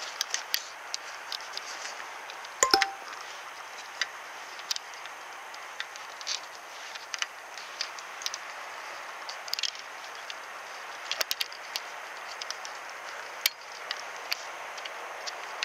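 Fishing tackle being handled: scattered light clicks and ticks, with one sharper metallic clink that rings briefly about three seconds in, over a steady hiss.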